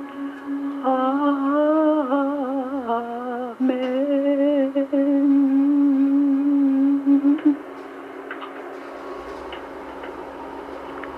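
A voice humming a long, wavering tone over a steady low drone, gliding up and down at first and then holding one note. It stops about three quarters of the way through, leaving the quieter drone.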